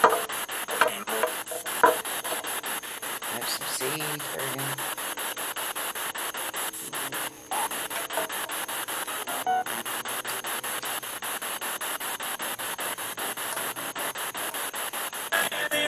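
Spirit box sweeping through radio stations: continuous static chopped in a rapid, regular rhythm, about four to five cuts a second, with brief snatches of broadcast sound caught between the hiss.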